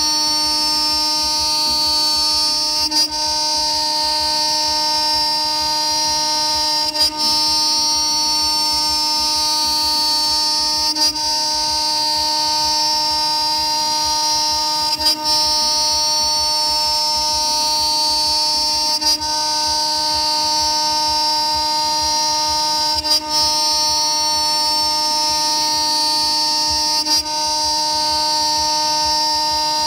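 CNC router spindle (a 2.2 kW high-speed spindle) milling 20 mm aluminium plate with a small end mill: a steady, loud whine of several held tones. About every four seconds the sound dips briefly with a click as the cut turns or starts a new pass.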